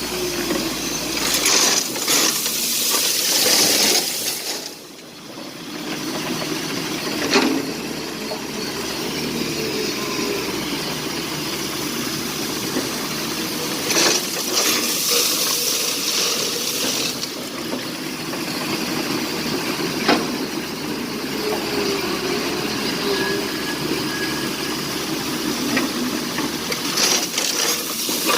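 Excavator engine running and working, with a loud rush of split andesite stone pouring out of the bucket three times, about every twelve seconds, and a few sharp clanks of rock striking metal in between.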